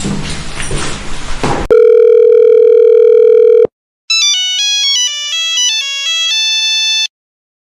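A loud, steady electronic beep of telephone type lasting about two seconds, then after a short gap a quick run of electronic tones stepping up and down in pitch for about three seconds. A ragged noisy sound comes before the beep.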